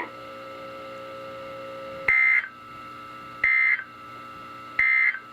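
Emergency Alert System end-of-message code: three short, warbling data-tone bursts, each about a third of a second long and about a second and a half apart, marking the end of the flood warning broadcast.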